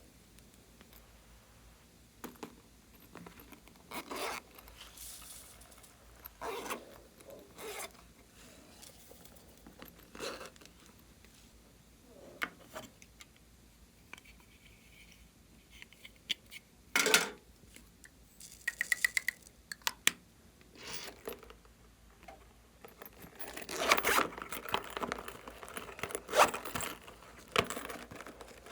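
Glossy slime being handled by hand, with scattered sticky crackles, scrapes and small pops between quiet stretches. There is a sharp knock a little past halfway, and the crackling grows denser near the end.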